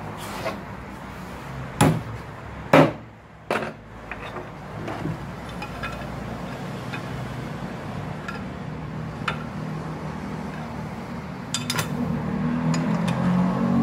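Sharp metallic knocks and clinks of drum-brake parts being handled against a Kia Bongo 3's steel rear brake backing plate: a few loud knocks in the first four seconds, then lighter scattered clicks.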